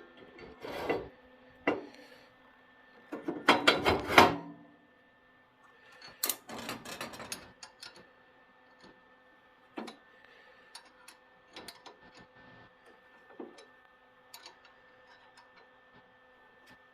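Bursts of scraping and rubbing, with scattered knocks and clicks, from objects being handled or slid about, over a faint steady hum. The loudest scraping comes about three to four seconds in, with another stretch around six to seven seconds.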